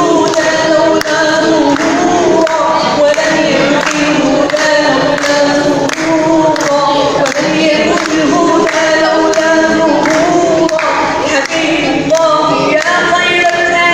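A man singing an Arabic nasheed, a devotional song, in a continuous melodic line over a steady beat.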